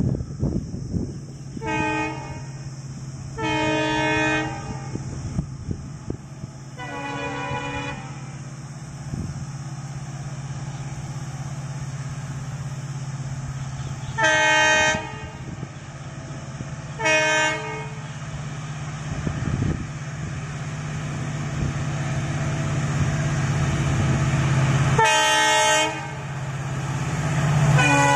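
Diesel locomotive horn sounding six separate blasts, some short and some about a second long, over the steady low drone of a diesel locomotive that grows louder near the end as the WDG-4-led freight train approaches.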